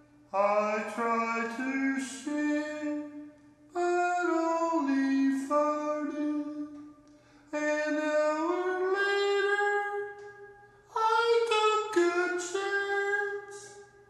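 Background music: a slow, singing-like melody in four phrases of about three seconds each, with short breaks between them, over a faint steady hum.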